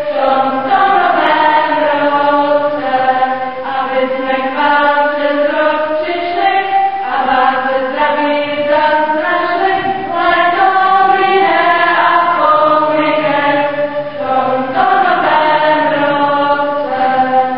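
Choir of girls and young children singing together, holding and moving between sustained notes.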